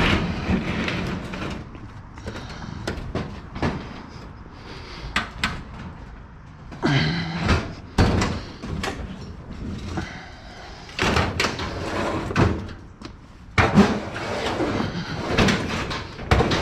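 Irregular knocks, scrapes and bangs of a metal kitchen stove being handled and shifted into place, in separate bursts with louder clanks now and then.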